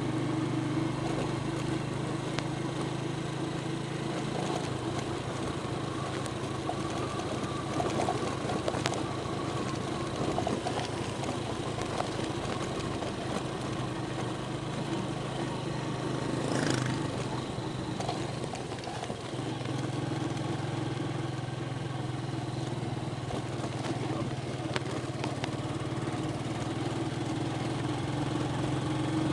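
Vehicle engine running while driving, a steady low hum that grows less even through the middle stretch.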